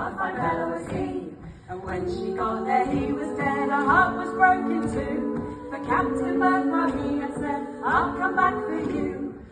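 A group of women singing together a cappella, several voices holding sustained notes in harmony.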